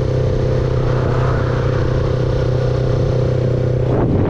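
R3 motorcycle's engine idling steadily, its even tone breaking up shortly before the end.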